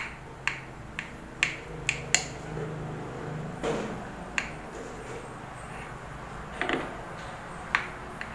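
Knife cutting a soft steamed cake on a glass plate, its blade clicking and tapping on the glass: a quick run of sharp clicks in the first two seconds, then a few more spaced out.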